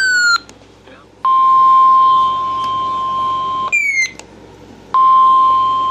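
Weather radio warning alarm tone: a loud, steady single electronic tone near 1 kHz, sounded twice for about two seconds each, with a short falling electronic sweep before each. It is the alert that precedes a severe thunderstorm warning broadcast.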